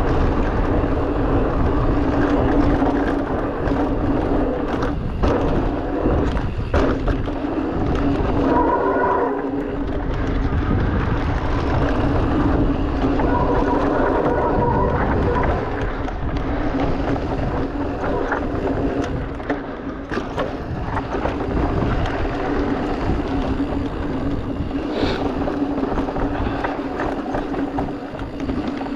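Giant Reign E+ electric mountain bike riding a dirt trail: knobby tyres rolling and rattling over loose ground with wind on the mount, over a steady whine from the mid-drive motor. A few sharp knocks come from the bike hitting bumps, around a fifth of the way in.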